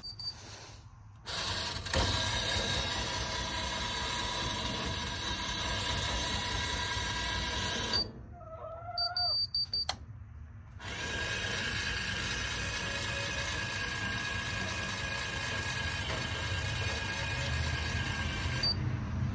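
Electric gear motor of an Ador automatic chicken coop door running steadily for about seven seconds as it lowers the sliding metal door, stopping with a short high beep. After a pause of about three seconds it runs again for about eight seconds, raising the door, and ends with another short beep.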